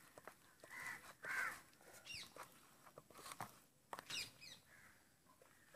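Faint bird calls: a couple of short calls about a second in, and quick high chirps around two and four seconds in.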